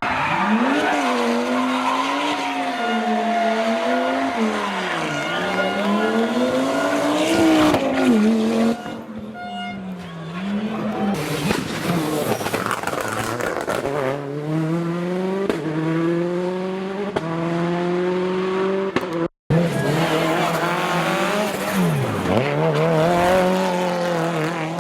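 Historic rally car engine at full load, accelerating hard and changing up through the gears, its pitch climbing and dropping at each shift, with some tyre squeal. The sound drops out completely for a split second about three-quarters of the way through.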